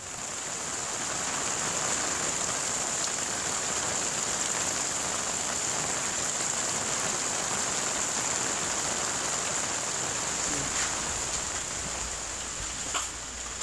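Steady rain falling, an even hiss with a few faint clicks near the end.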